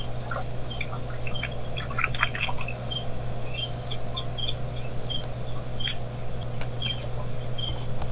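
Many short, high chirps of small birds, scattered irregularly, with a few soft clicks, over a steady low electrical hum.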